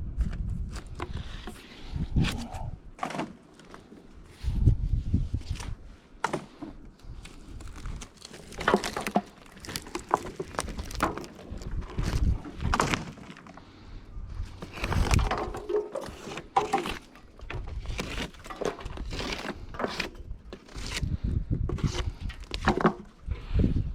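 Irregular knocks, clacks and rustling from objects being handled, with low rumbling gusts from time to time.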